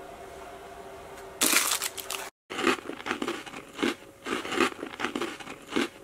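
Plastic wrapper of a rice cracker torn open with a crinkle about a second and a half in. After a brief break, the rice cracker is bitten and chewed in a run of crunches, about two a second.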